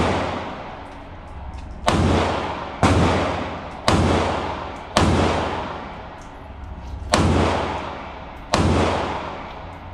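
Six pistol shots from a semi-automatic handgun fired at an irregular pace of about one a second, each crack followed by a long echo that rings down inside an indoor shooting range.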